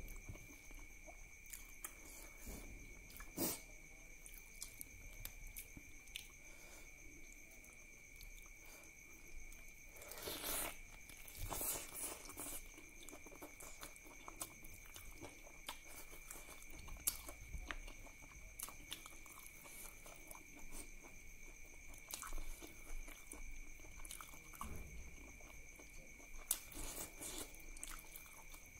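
Close-up eating sounds: a person chewing mouthfuls of rice and duck curry, with wet mouth clicks and smacks and the squelch of fingers working the curried rice. A few louder wet chewing bursts stand out about ten to twelve seconds in.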